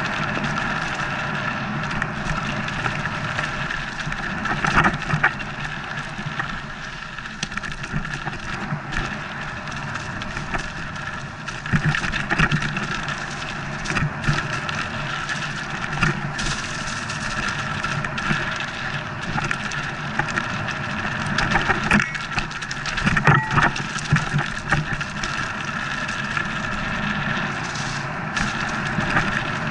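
Mountain bike riding fast down a dirt forest trail: a steady rush of tyres on dirt and wind on the microphone, with the frame and chain knocking and rattling over bumps, hardest about three-quarters of the way through.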